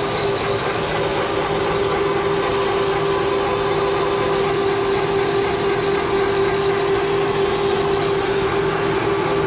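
Bafang electric bike hub motors running on lifetime test rigs, chained to load motors: a steady mechanical hum with one held whining tone.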